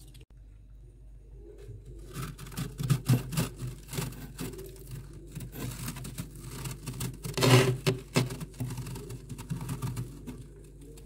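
A hand pressing into and working a heap of powdery freezer frost: a dense run of crisp crunching and crackling that starts about two seconds in, peaks past the middle and dies away near the end. A steady low hum runs underneath.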